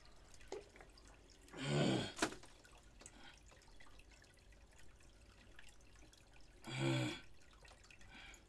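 Quiet room with faint small clicks and ticks, broken twice by a short burst of a man's voice, about two seconds in and again about seven seconds in.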